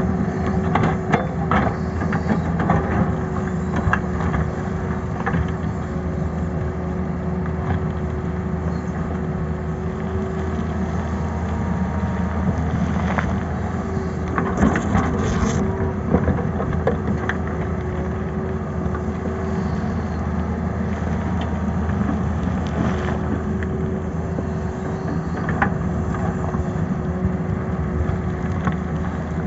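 Tata Hitachi hydraulic excavator's diesel engine running steadily under load as it digs, with scattered sharp knocks and scrapes of the steel bucket against rock and stones, most of them in the first few seconds and around the middle.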